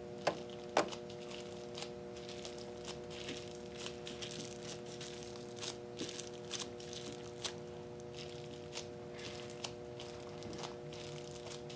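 Plastic bubble wrap crinkling and crackling faintly as it is laid onto wet acrylic paint and handled, with scattered small clicks, two sharper ones in the first second, over a steady background hum.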